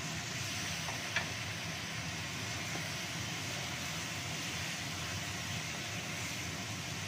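Steady hiss of quail eggs and potatoes in spiced sauce simmering in a wok over a gas burner, a little water just added. A wooden spatula stirs, with one sharp knock against the pan about a second in.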